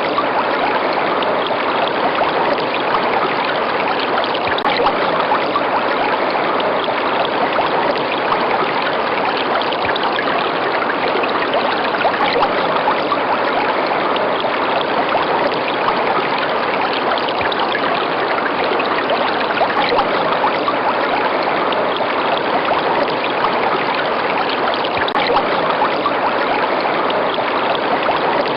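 River water running steadily, an even rushing noise with no breaks.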